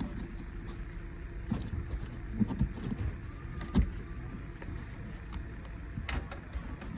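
Scattered light knocks and rustling of a cable being pushed into plastic interior trim and headliner, over a steady low rumble.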